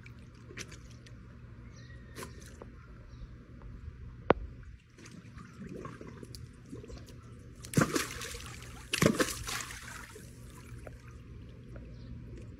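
Pool water sloshing and splashing as a golden retriever wades and dunks its head under the surface, with two louder splashes about eight and nine seconds in. A single sharp click a little after four seconds.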